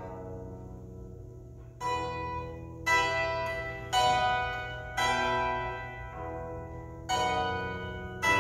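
Ukrainian bandura played solo: a chord fades away, then from about two seconds in comes a run of strongly plucked chords, mostly about a second apart, each ringing out and dying away.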